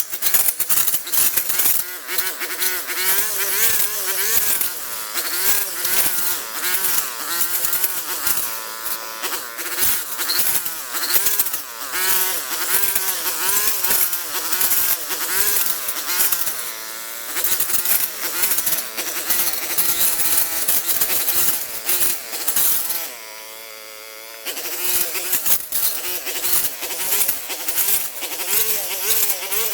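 A small motor running with a buzzing drone whose pitch keeps rising and falling. Constant clicking and scraping runs alongside it, and the drone drops away briefly about twenty-three seconds in.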